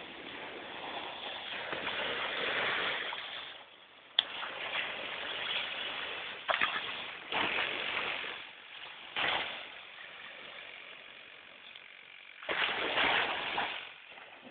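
Ocean surf washing onto the beach, through a phone's small microphone: a rushing hiss that swells and fades in waves of a second or two. A sharp click about four seconds in.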